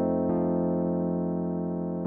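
Kurzweil K2000 synthesizer playing a factory program, raw with no effects: a held keyboard chord, with another note struck about a third of a second in and left to ring.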